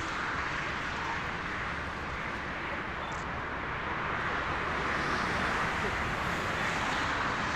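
Steady roar of a jet airliner's engines, growing a little louder about halfway through.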